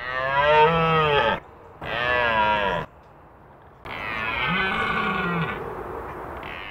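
A deer calling: three long, low, drawn-out calls with short pauses between them, the last one the longest and fading away.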